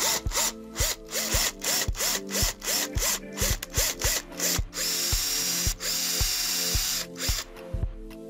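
Power drill running as a twist bit bores through a wooden board, steady and then stopping shortly before the end, over background music with a steady beat.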